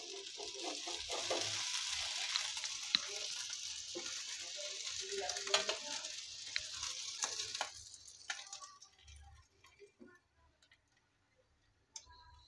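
Whole fish sizzling in shallow oil in a frying pan, with sharp clicks and scrapes of a spatula as the fried fish are lifted out. The sizzle dies away about eight seconds in.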